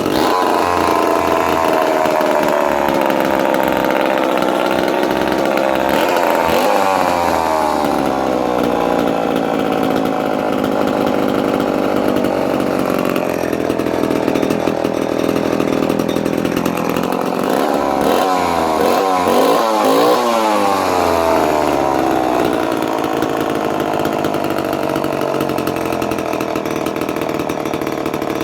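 Homelite C91 85cc vintage chainsaw engine running without its bar and chain, mostly holding a steady speed, with its pitch swinging up and down about six seconds in and several more times between about eighteen and twenty-one seconds in as the throttle is worked.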